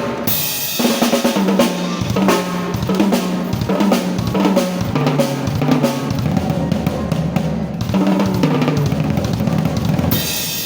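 Drum kit played in a busy solo: bass drum and snare with fast rolls over a held low note, ending with a cymbal crash about ten seconds in.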